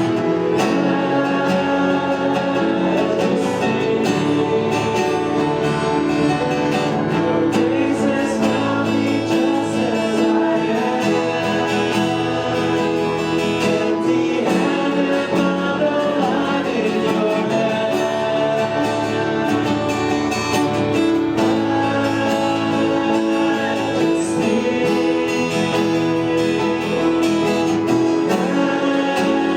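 Worship music: strummed acoustic guitar with singing, steady throughout.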